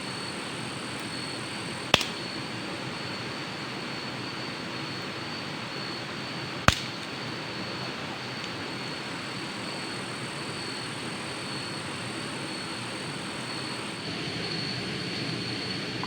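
Steady rushing of a waterfall, with a constant high-pitched whine above it. Two sharp clicks stand out, about two seconds and about seven seconds in.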